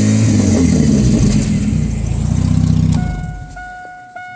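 Chevrolet S-10 pickup engine running loud and revving. It cuts off sharply about three seconds in, and a repeated keyboard-like musical note follows.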